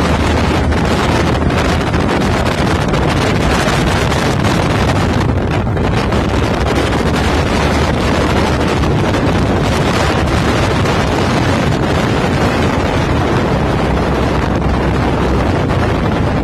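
Wind blowing on the microphone: a loud, steady rush with no breaks.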